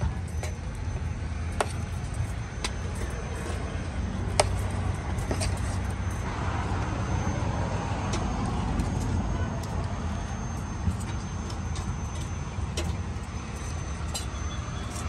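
Steady rumble of street traffic, with a few sharp clicks of a metal spoon striking as avocado mash is spooned onto toast on the griddle.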